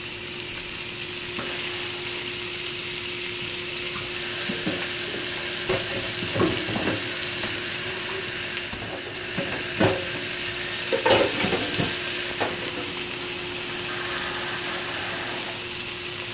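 Chicken pieces, cabbage and onions sizzling in a hot wok, a steady frying hiss. Several short knocks and scrapes of a utensil stirring against the wok come in the middle.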